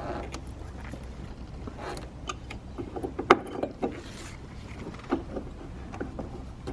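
Scattered small plastic clicks and knocks, the sharpest about three seconds in, as a 9005 halogen bulb is worked back into a headlight housing by hand, over a steady low hum.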